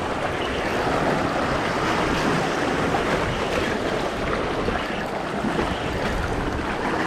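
Surf washing on the beach under steady wind buffeting the microphone.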